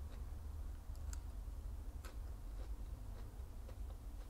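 Faint, scattered crisp clicks from magnolia petals being eaten and handled, irregular and a few a second, over a steady low hum.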